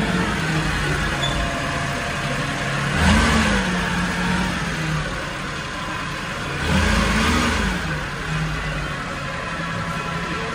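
A 1993 Mitsubishi Minicab truck's small three-cylinder engine idling and being blipped twice, about three seconds in and again about seven seconds in, its pitch rising and settling back to idle each time.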